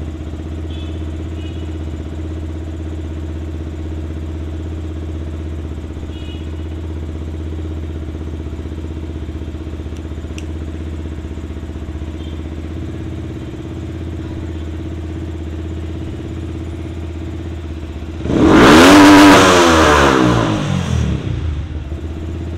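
Yamaha R15 V3's single-cylinder engine idling steadily, then revved hard once near the end, climbing to a loud peak and falling back to idle over about three seconds. The rev is a full-throttle blip for the Powertronic ECU's load calibration.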